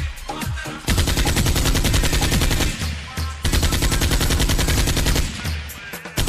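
Rapid automatic gunfire, a machine-gun sound effect laid over prop rifles. It comes in two long bursts, the first starting about a second in and the second after a short break near the middle.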